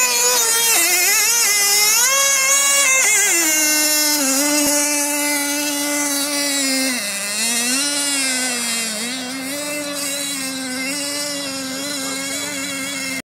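Remote-control boat's motor whining at close range, its pitch high for the first three seconds, then dropping and wavering up and down as the throttle changes.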